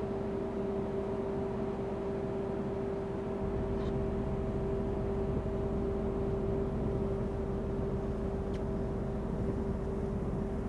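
Car ferry's engines and machinery droning steadily under way, a constant hum over a low rumble that gets heavier about three seconds in.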